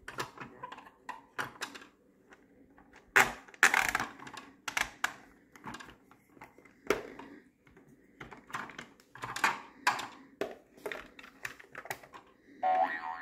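Hard plastic toy train cars being handled: irregular clicks, taps and knocks as the pieces are moved, pressed and fitted together. Near the end a pitched sound starts briefly.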